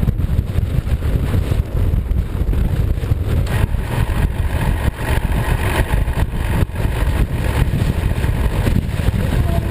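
Off-road vehicle engine running steadily, with a heavy low rumble.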